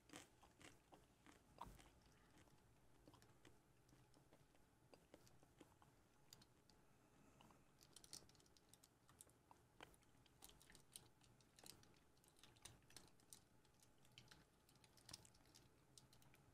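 Near silence with faint, scattered small clicks and crunches, more of them in the second half: communion bread being eaten quietly and the small communion elements handled at the table.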